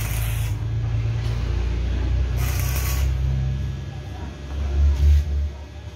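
Electric arc welding on a cracked Stihl 070 chainsaw crankcase: short crackling hiss bursts as the arc is struck, once at the start, again about two and a half seconds in and briefly near the end, over a steady low hum.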